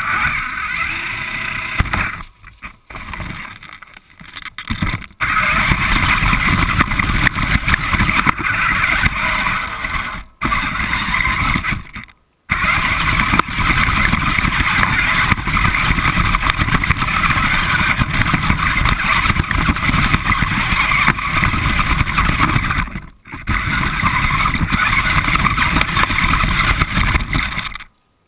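Radio-controlled car driving, heard close up from a camera mounted on it: a loud, rough running noise of motor and wheels. It drops out abruptly a few times.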